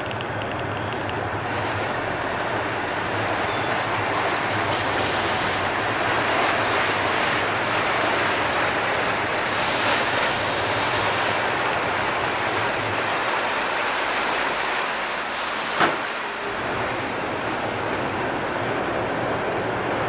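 Ferry under way, coming into harbour: a steady rush of water churned along the hull, with a low engine drone that fades away about two-thirds of the way through. A single short knock about sixteen seconds in.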